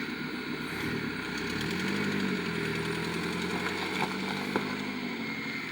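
1997 Toyota Camry's engine revving up about two seconds in and holding steady revs under load as the car pushes against an obstruction, easing off slightly near the end. A single sharp knock about four and a half seconds in.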